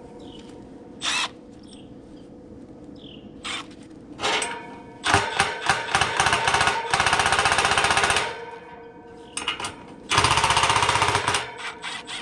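Cordless impact driver hammering in two bursts of about a second each, running screws on the fan motor mount, after a series of shorter clicks and metal knocks.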